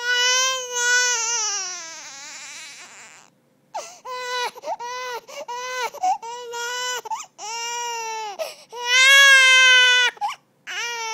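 Four-month-old baby crying from hunger: one long wail that trails off, a short pause, then a run of short repeated cries and another loud, long wail near the end.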